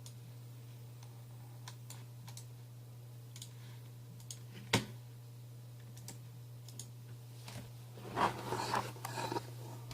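Scattered computer keyboard and mouse clicks, with one sharper click about halfway and a short flurry of busier clicking near the end, over a steady low electrical hum.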